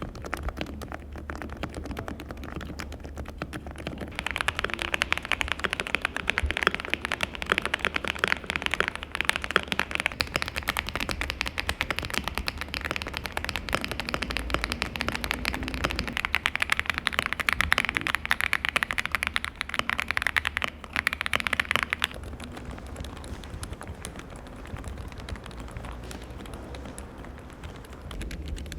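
Fast typing on AULA mechanical keyboards: a dense run of keystroke clacks. The clacks are louder and brighter from about four to twenty-two seconds in, then softer.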